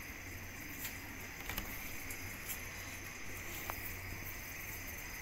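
Quiet kitchen room tone with a faint steady low hum and a few soft, isolated clicks.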